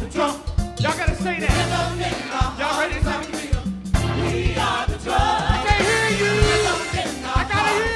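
Gospel choir singing with a live band, a steady beat of sharp hits under the voices.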